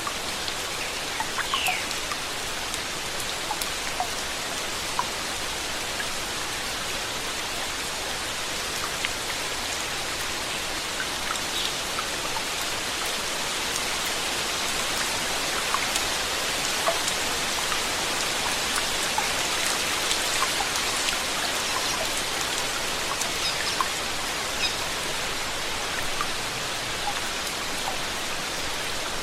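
Steady rain falling, a continuous hiss with scattered individual drops ticking on a surface.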